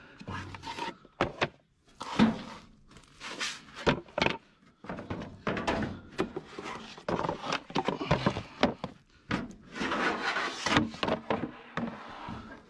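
Items in a pile of discarded junk being handled and shifted: a string of irregular knocks and thunks with scraping and clattering in between.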